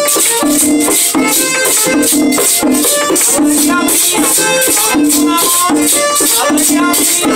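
Live merengue típico (perico ripiao) played on a button accordion, a tambora drum and a metal güira: the accordion's melody over the tambora's beat and the güira's quick, even scraping.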